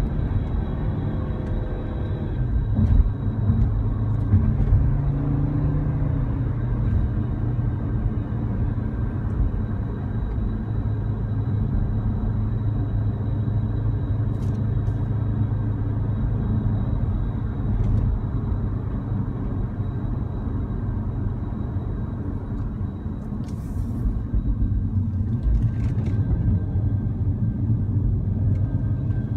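Cabin noise of an Audi RS Q3: a steady low rumble with a thin, steady high whistle and a few short rattling clicks, the whirring-and-rattling noise from the air-conditioning duct that the owner takes for an abnormal noise.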